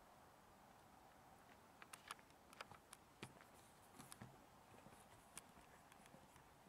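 Faint, irregular crunches and clicks of someone walking and moving close through bushes, starting about two seconds in.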